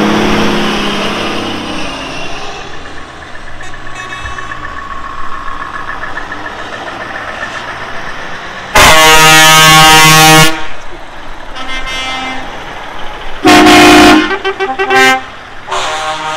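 Lorry air horn sounding: one long, loud blast about nine seconds in, then a shorter blast and a brief toot a few seconds later, over the running of lorry engines.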